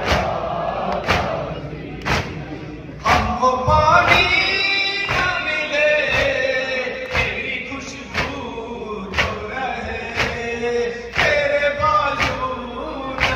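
Men's voices reciting an Urdu noha (Shia lament), one lead voice on a microphone with others joining. Under it the congregation does matam, hands striking chests together in a steady beat about once a second.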